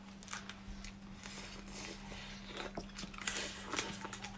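Crayfish shells cracked and peeled by hand, with sucking and chewing at the mouth, heard as soft scattered clicks and crackles over a faint steady low hum.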